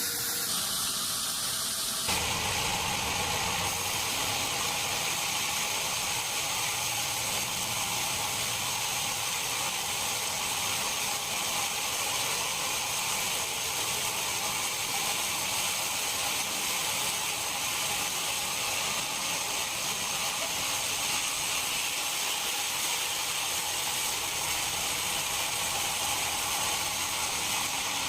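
Steady machinery noise, mostly a high hiss with a faint high whine, its character changing once about two seconds in and then holding even.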